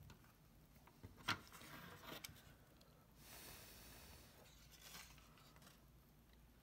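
Faint handling noises at a soldering bench: a sharp click a little over a second in, a few softer ticks, and a soft hiss for about a second around the middle.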